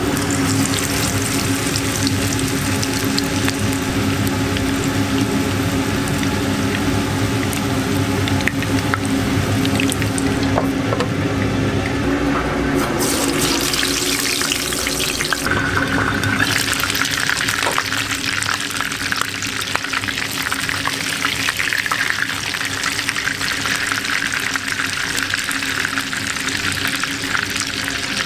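Hamburger patty sizzling as it shallow-fries in hot oil, a steady crackling hiss that turns brighter about halfway through, over a low steady hum.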